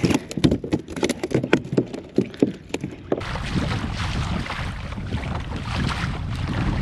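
A bunker (menhaden) flopping on the plastic deck of a kayak: a quick, irregular run of slaps and knocks for about three seconds. It then gives way suddenly to a steady rush of wind on the microphone and water.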